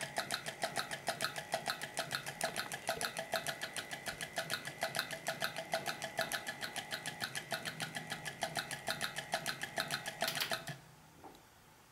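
Homemade electromagnetic 'beatbox' of wood and pasta, its magnet switched by a reed switch, clicking out a fast, very regular rhythm of about seven clicks a second over a steady high hum. It stops suddenly near the end.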